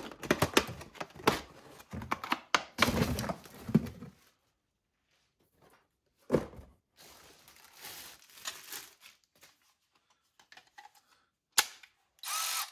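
Stiff plastic blister packaging of a Milwaukee M12 battery-and-charger kit being handled and pried open: a quick run of clicks, crackles and crinkling, then a single thunk about six seconds in and some lighter rustling. Near the end a click, then a Milwaukee cordless ratchet's motor starts to whir.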